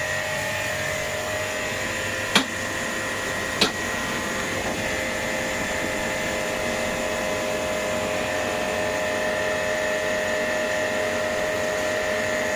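A small electric motor running steadily with a whine and a fan-like hiss. Two short clicks come a few seconds in.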